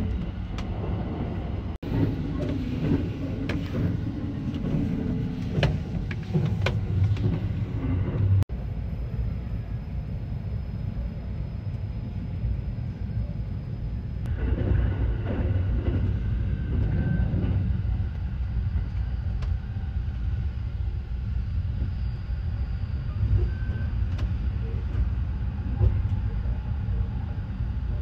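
Steady low rumble of the Sunrise Seto sleeper train, a 285 series electric train, running on the rails, heard from inside a sleeping compartment. A few sharp clicks sound over it in the first eight seconds.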